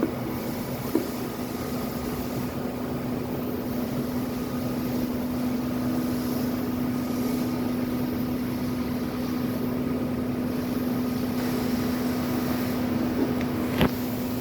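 Hot plate welding machine running with a steady hum that holds one tone, with a light click about a second in and a sharp click near the end.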